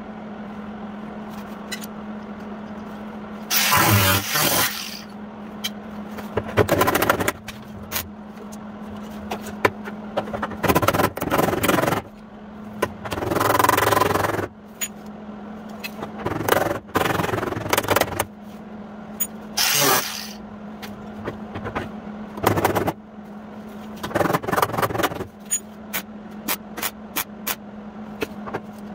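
MIG welder tack-welding a sheet-metal patch into place: separate bursts of arc crackle, each about a second long, over a steady hum, with a quick run of short sharp snaps near the end.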